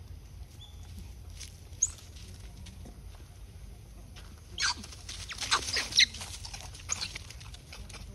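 Macaque monkeys giving a quick burst of short, high-pitched squeals and chirps with falling pitch about four and a half to six seconds in, with one brief high chirp earlier.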